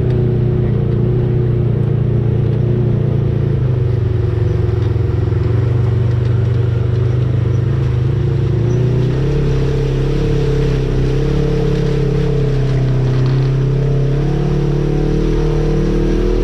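Off-road vehicle's engine running at low, steady revs, its pitch shifting slightly about halfway through as the throttle changes.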